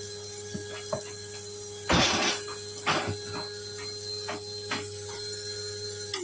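Small electric blade grinder's motor running with a steady whine, with hard pieces rattling and clattering inside. It is switched off near the end and the whine falls away as the blades spin down.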